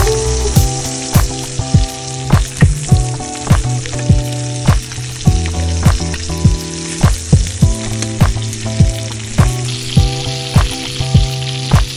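Chicken thighs sizzling steadily as they fry in olive oil and butter in a pan. Background music with a steady beat plays over it.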